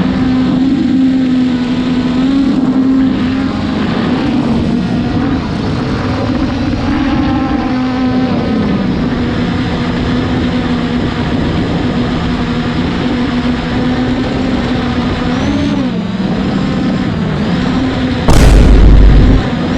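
A quadcopter drone's propellers hum steadily, the pitch wavering up and down as the motors correct against the wind. Wind noise runs underneath, and a sudden, very loud rumble of about a second comes near the end.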